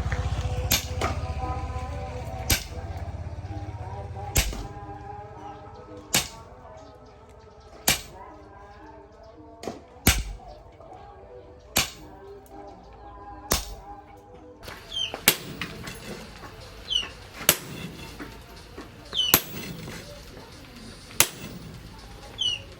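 Hammer blows on steel: single sharp strikes about every two seconds, each with a brief ring, coming in closer pairs during the second half. A low rumble fades out over the first few seconds.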